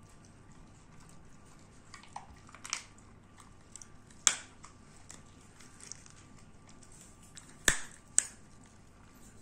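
A Saluki chewing a bone: scattered sharp cracks and crunches as its teeth bite down. The loudest comes about four seconds in, and two more come close together near the end.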